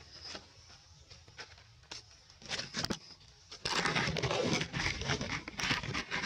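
Dry rustling and crackling, like leaves and fur being disturbed as macaques move. A few faint clicks at first, a short crackle about two and a half seconds in, then loud, continuous rustling from about three and a half seconds in.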